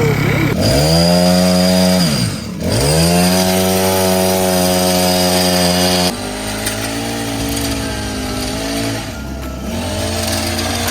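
Toy chainsaw's electronic engine sound set off by its pull cord: a pitched motor note revs up, dips and revs up again, then runs steadily. About six seconds in it changes abruptly to a lower, wavering idle.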